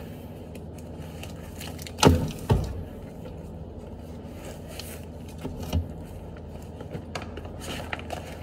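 Rummaging through a leather backpack on a desk: light rustling and small clicks, with two sharp knocks about two seconds in and a softer one near six seconds, over a steady low room hum.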